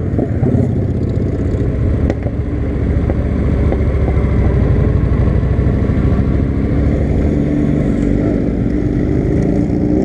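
Honda Shadow V-twin motorcycle engine running under way, its pitch climbing near the end as the bike speeds up.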